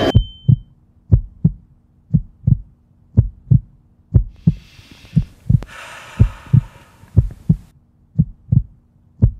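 Heartbeat sound effect, a steady double beat about once a second, over a faint low hum. A soft hissing swell, like breath, rises and falls around the middle.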